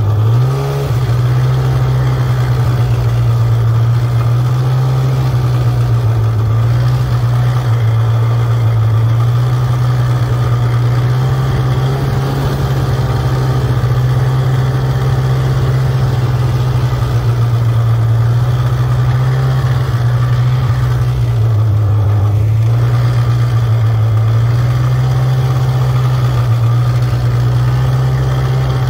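Snowmobile engine running at low speed, a steady low drone whose pitch rises and falls slightly with the throttle. It revs up briefly near the start and dips, then picks up again about two-thirds of the way through.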